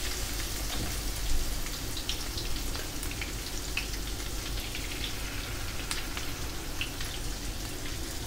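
Cha-om (acacia shoots) and beaten egg frying in hot oil in a pan, a steady sizzle with scattered small pops and crackles.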